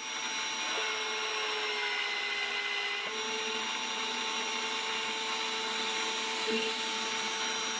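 Vevor magnetic drill running steadily, its annular cutter boring a hole through steel: an even motor whine over a grinding hiss.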